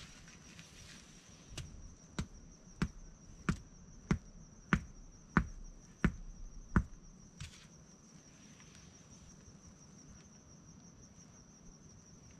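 A steady, high-pitched insect drone, with about ten sharp footsteps on hard dirt ground, evenly paced and loudest as the walker passes close, fading after about seven seconds.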